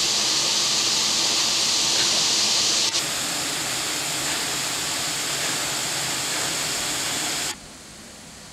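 Steady hiss of outdoor ambient noise. It changes abruptly about three seconds in and drops much quieter near the end, stepping down at cuts between shots.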